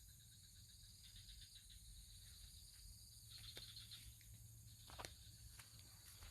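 Near silence: a faint steady high-pitched insect drone, chirping in quick pulses for the first second or so, with a few soft clicks about three and a half and five seconds in.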